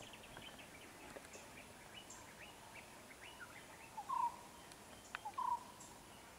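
Birds chirping and calling in a steady scatter of short, high notes, with two louder short calls about four and five and a half seconds in.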